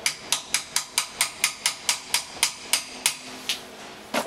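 Hammer blows on a cold chisel driven against a metal ring on a car stub axle held in a vise, a quick, even run of sharp ringing metal strikes, about four to five a second, slowing toward the end. The chisel is splitting the ring at a hacksaw cut so that it comes off the shaft.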